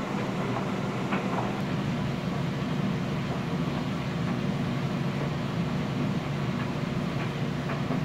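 Steady low hum and rumble of coin laundry machines running, with a few faint ticks.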